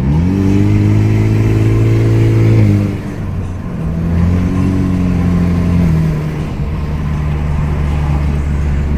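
Turbocharged car engine revved twice with the car standing: a quick climb held for under three seconds and then released, a shorter, lighter blip, then a steady idle.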